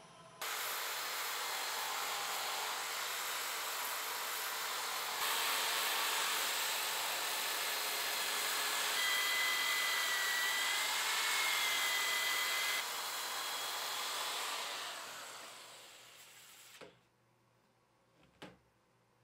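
A sycamore workpiece spinning on a wood lathe being worked: a steady hiss that starts suddenly, steps louder about five seconds in, carries a high squeal for a few seconds in the middle, then fades away.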